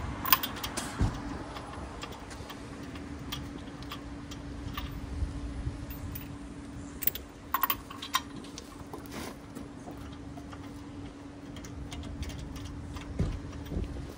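Scattered light metallic clicks of lug nuts being hand-threaded onto the wheel studs, over a steady low hum.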